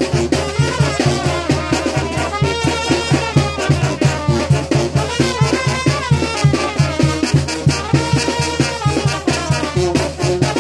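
Brass band music with trumpets and drums playing a steady dance beat.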